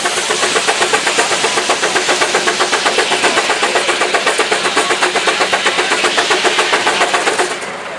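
Case steam traction engine's exhaust beating up the stack in a fast, even rhythm, about five or six beats a second, as it works under load driving the sawmill. The beat dies away near the end.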